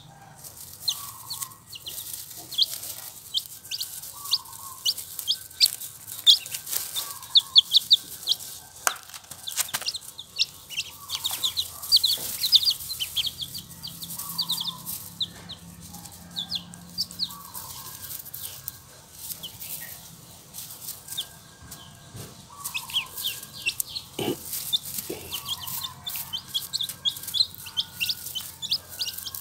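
Four-day-old chicks and ducklings peeping constantly: many short, high peeps in quick succession, with a lower call repeating every second or two underneath and a few brief knocks.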